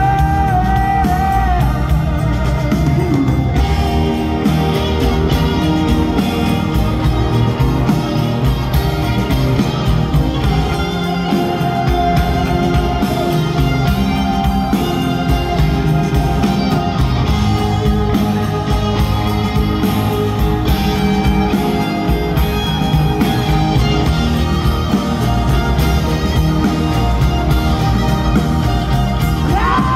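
A live rock band playing a mostly instrumental stretch, with guitar over steady drums and bass, heard through the PA from within an open-air crowd. A held vocal note sounds near the start.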